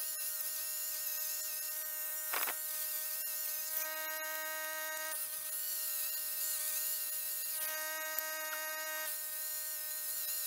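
Angle grinder with a wire cup brush running at a steady whine, its wires scratching over the twisted steel hook clamped in a vise to clean the forged surface.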